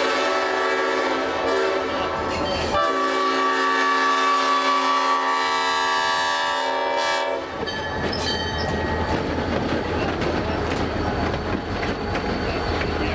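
Leslie five-chime locomotive air horn sounding a full chord in two long blasts, with a brief break between them about three seconds in. The second blast cuts off about seven and a half seconds in, leaving the locomotive's rumble and the clatter of its wheels on the rails.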